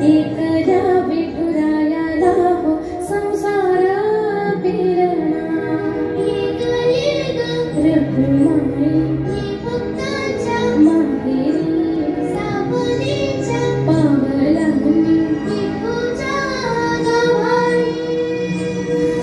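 Female voices singing a Marathi song in a wavering, ornamented melody over steady instrumental accompaniment.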